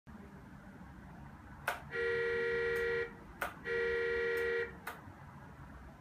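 RC bulldozer's onboard sound module sounding its horn twice through a small speaker, each honk a steady tone about a second long, with short sharp clicks around them.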